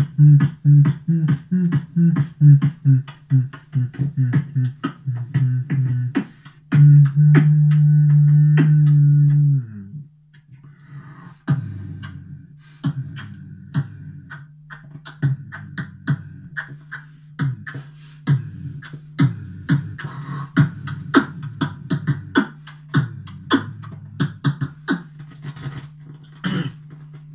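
Beatboxing into a handheld microphone: fast mouth-made kick and snare hits over a low bass tone. About seven seconds in, a loud held bass note lasts about three seconds and drops away, and then the beat returns sparser over a steady low drone.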